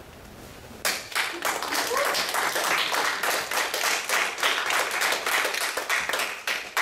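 Audience applauding. The clapping starts about a second in and stops just before the end.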